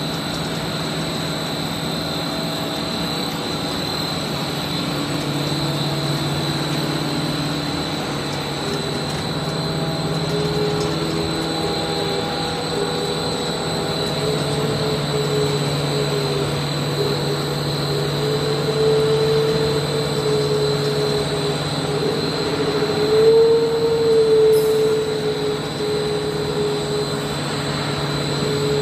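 HDPE pipe extrusion line running: a steady machine hum with several held tones, one of them wavering slightly in pitch, over a faint high whine.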